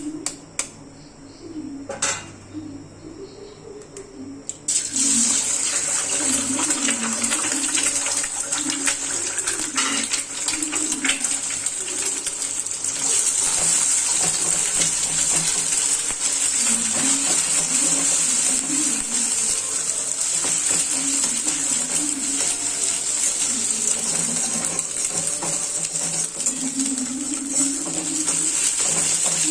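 A few light clinks of a utensil, then about five seconds in a sudden, steady sizzle as ingredients hit hot oil in the pan.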